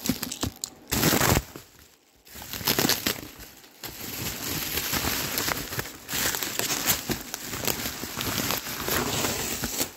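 Bubble wrap and plastic packing being pulled apart and crinkled by hand, a continuous crackly rustle that is loudest about a second in and dips briefly near two seconds.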